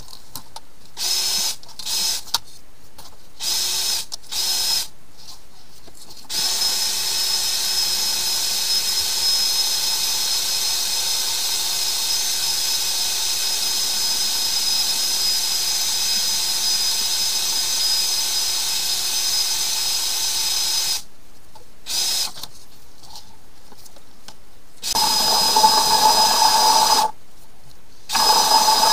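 Flex-shaft drain-cleaning machine's motor spinning its cable inside a clogged sink drain pipe, with a steady whine. It starts in short on-off bursts, runs continuously for about fifteen seconds, then cuts back to short bursts. Near the end the bursts are louder with a heavier hum.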